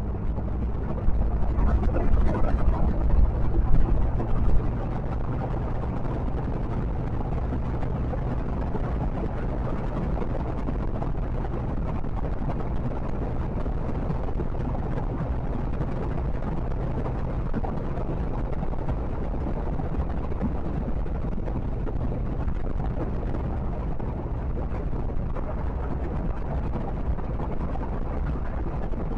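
Steady low drone of engine and road noise from a vehicle cruising at highway speed, heard through a dashcam microphone. From about a second in to nearly five seconds in, a louder rushing swell rises over the drone before it settles back to an even level.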